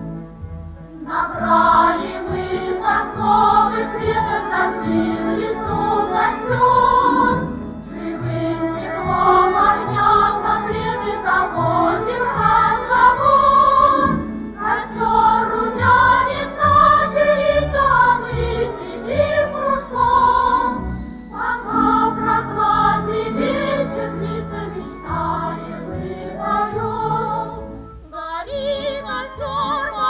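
A Soviet pioneer song sung with instrumental accompaniment, the melody coming in phrases of several seconds with short breaks between them.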